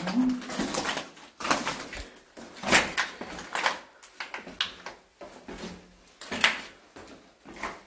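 Footsteps going down a flight of stairs, with irregular knocks and scuffs of shoes on the steps about once a second.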